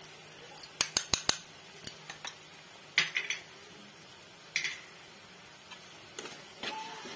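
Metal spoon clinking and tapping against steel cookware: a quick run of sharp clinks about a second in, then single clinks every second or so.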